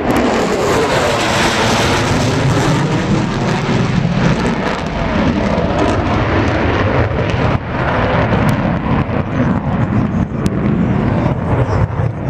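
B-1B Lancer bomber flying over, its four turbofan engines making a loud, steady jet rush with faint sweeping shifts in pitch.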